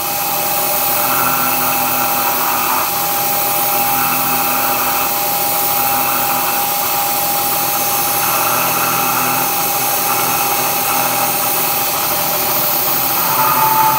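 CNC-converted Bridgeport milling machine running its half-inch three-flute carbide end mill at about 2,500 rpm, milling the contour of a hot-rolled steel part. It makes a steady high tone over a machine hum, with a harsher band of cutting noise that swells and fades every few seconds as the cut goes along.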